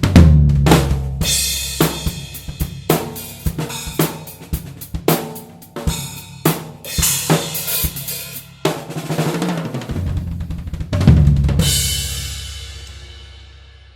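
Yamaha Tour Custom drum kit being played: a run of snare, tom and bass drum strokes with cymbals and hi-hat, the drums ringing on. About eleven seconds in, a final crash hit rings out and fades away.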